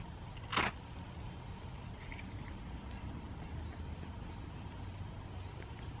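A single quick scrape of the Leatherman Signal's saw spine down its ferrocerium rod about half a second in, throwing sparks to light a tinder bundle.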